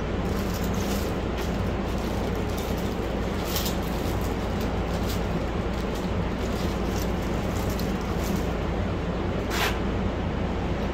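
A steady machine hum and hiss runs under light clicks and rustles of hand work: a plastic bag of valve stem seals being handled and seals being fitted onto an aluminium cylinder head, with two sharper ticks, the clearer one near the end.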